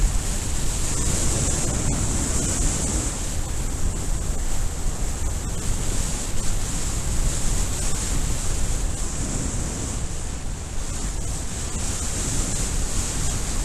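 Rushing airflow buffeting a camera microphone during speedflying flight: a steady, loud wind rumble with a high hiss on top.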